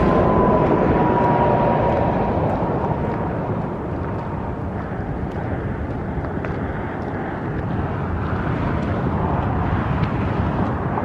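Steady vehicle noise of a car driving on the highway, with a faint whine that sinks slightly in pitch over the first few seconds and fades out.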